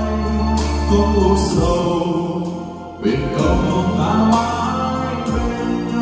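A man singing karaoke into a wireless microphone over a music backing track, both played through an Lx acoustic line-array PA system with subwoofers, with deep bass notes. The music dips briefly about three seconds in.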